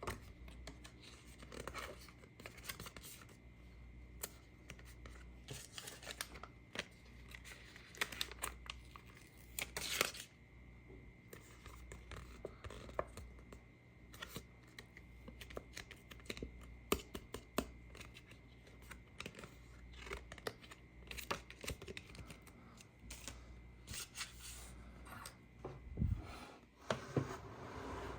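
Hands handling a plastic toy playset and its packaging: irregular clicks and taps of plastic parts, with a few short bursts of rustling or tearing.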